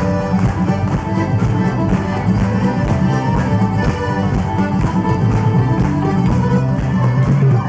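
Irish traditional music played live by a full band: two fiddles lead a lively tune over piano accordion, guitar and concertina, with a bodhrán beating a steady rhythm.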